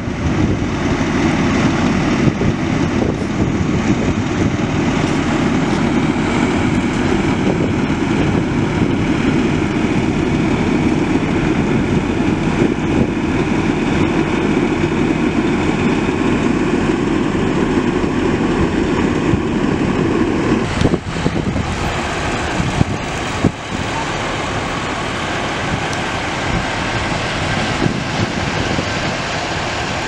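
Fire engine's diesel engine running steadily as it drives the pump for the hose lines, a loud constant drone. About two-thirds of the way through it dips briefly and carries on slightly quieter.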